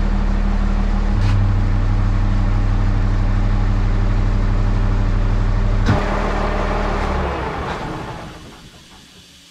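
Hough Pay Loader wheel loader's engine running steadily, a little louder about a second in. About six seconds in there is a click, and the engine winds down and stops over the next two seconds.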